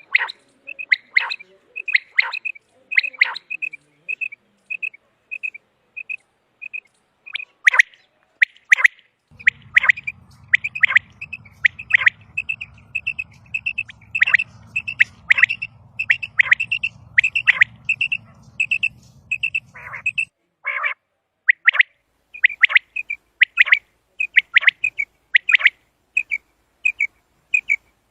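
Common quail calling over and over: a rapid series of short, high notes, roughly two to three a second, with louder, sharper notes mixed in.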